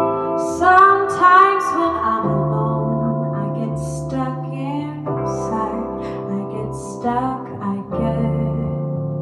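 Music: a song with a woman singing over sustained keyboard-like chords and a bass line.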